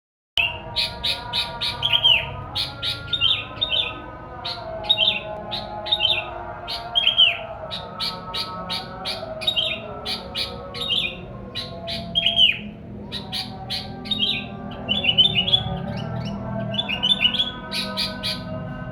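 Sooty-headed bulbul song: phrase after phrase of quick chirps and short whistled notes that curve downward, repeated throughout with brief gaps.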